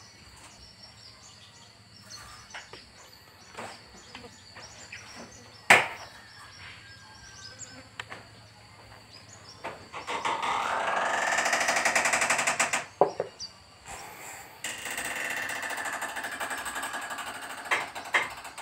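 Quiet handling of wood with a sharp knock about six seconds in, then a handheld power tool running on meranti wood in two bursts of about three seconds each, the first starting about ten seconds in, with a fast even buzz.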